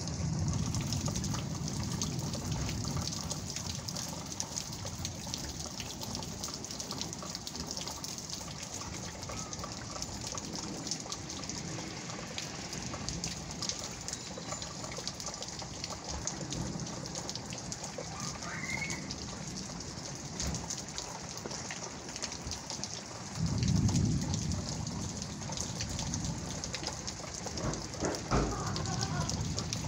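Steady rain falling, with drops pattering close by. A low rumble swells and fades about three-quarters of the way through.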